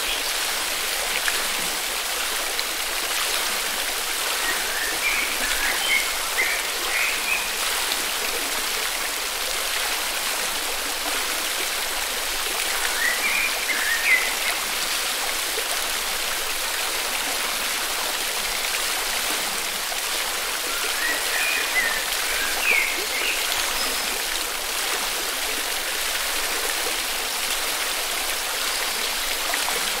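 Forest river water flowing with a steady rushing hiss. Brief chirping calls come in three short bouts over it.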